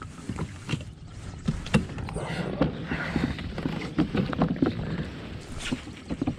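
Scattered knocks and clicks of gear being handled aboard a fishing kayak, over a low rumble.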